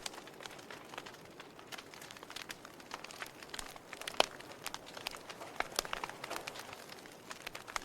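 Wood fire crackling in a fireplace: irregular sharp pops and snaps over a soft hiss, with one louder pop a little after four seconds in.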